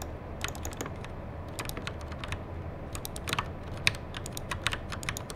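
Keys of a red-backlit gaming keyboard clacking in quick, irregular presses and short flurries during play of a computer game, over a steady low hum.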